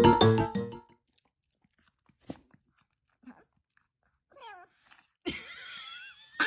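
Background music cuts off about a second in. Then come a few scattered clicks and a pet's short, falling cries, followed by a longer wavering, noisy whine near the end.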